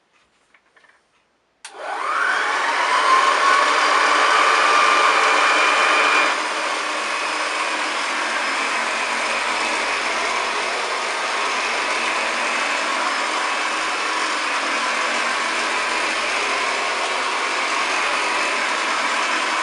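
A 1929 Hoover Model 725 upright vacuum cleaner switched on, its motor whining up in pitch as it spins up, then running steadily. About six seconds in the sound drops a little and the highest whine fades out.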